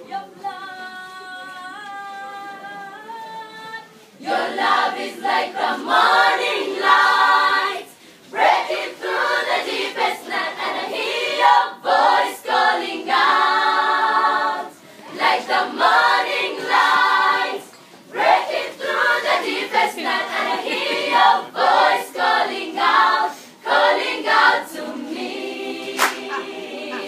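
Children's choir singing unaccompanied: a single voice sings a short line, then the full choir comes in about four seconds in and sings on in phrases with short breaks between them.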